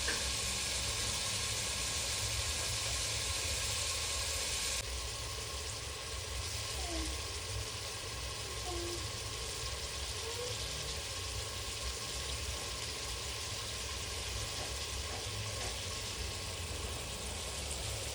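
Food sizzling as it fries in desi ghee in a pan: a steady hiss over a low rumble, turning quieter about five seconds in.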